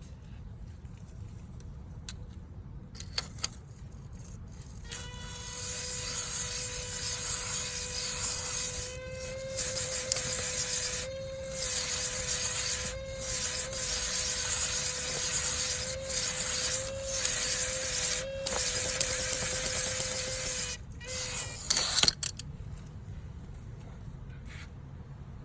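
Electric drill spinning a cylinder hone inside an engine block bore: a steady motor whine with a hiss of the hone stones scraping the cylinder wall, running about fifteen seconds with several brief pauses, then stopping. A few light clicks come before and just after.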